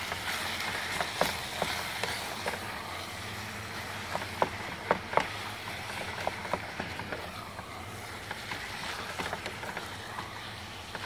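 Ground beef frying in a stainless steel pot on a portable gas stove, a steady sizzling hiss, with irregular clicks and scrapes of a metal spoon against the pot as the mince is stirred and broken up.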